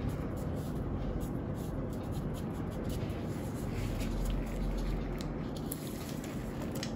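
Faint rustling and crinkling of kinesiology tape and its paper backing being handled and peeled, with scattered small crackles over steady low background noise.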